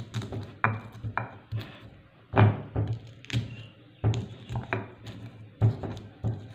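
Stone pestle (ulekan) pounding garlic cloves and candlenuts on a flat stone mortar (cobek): a string of dull knocks, about two a second, some louder than others, as the pieces are crushed.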